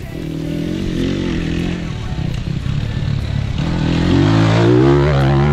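Enduro dirt bike engine running under throttle, its pitch wavering as the rider works the throttle. About three and a half seconds in it revs higher and gets louder.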